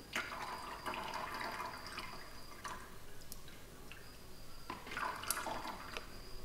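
Milky silver chloride slurry trickling and dripping from a plastic bottle into a coffee filter in a plastic strainer, with a few light clicks of plastic. This is the precipitate being filtered out of the nitric acid solution.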